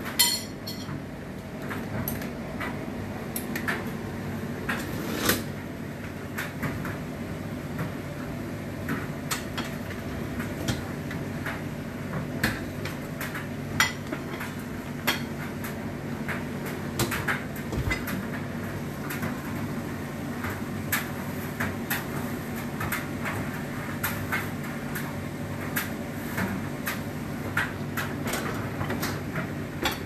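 Dishwasher racks and the dishes in them being handled: scattered sharp clinks and knocks of crockery and plastic against the wire racks as the racks are moved. A steady low hum runs underneath.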